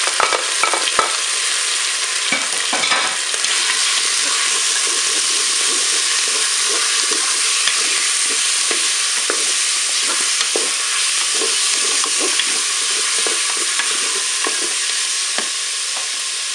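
Chicken pieces sizzling in hot oil in the non-stick bowl of a Moulinex Cookeo multicooker on its browning setting. A wooden spatula clicks and scrapes against the bowl as the pieces are stirred.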